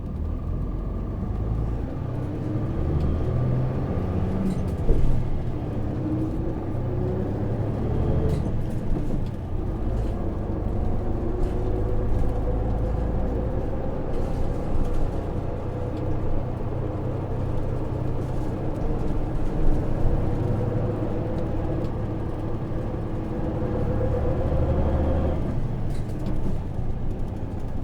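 Interior running sound of a Hino KV234 city bus with its 6HK1 diesel engine, heard inside the cabin: a steady low rumble under an engine note that climbs slowly over many seconds as the bus pulls, then drops sharply near the end. A few light knocks and rattles come through as it drives.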